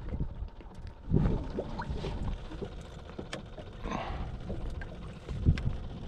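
Knocks and thumps on a small fishing boat, with water lapping at the hull and scattered light clicks. The loudest thumps come about a second in and again late on, with a short rushing noise about four seconds in.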